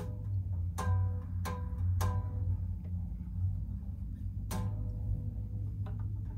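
Single fretted notes plucked one at a time on the steel strings of a newly strung Firebird-style electric guitar kit, four plucks with the last ringing for about a second, over a steady low hum.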